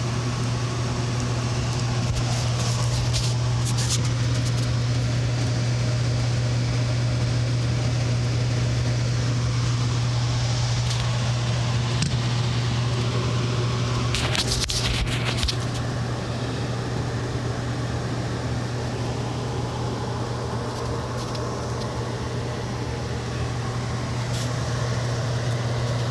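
Electric furnace contactor buzzing with a steady low hum, the sign of a faulty contactor that needs replacing. A few brief knocks and rustles are heard over it, the largest about midway.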